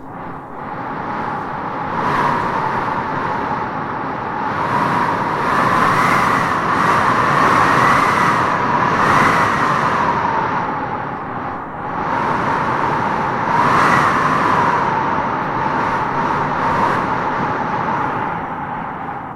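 Howling wind blowing in gusts, a whistling tone that rises in pitch as each gust swells: a few times in the first half and once more about two-thirds of the way through.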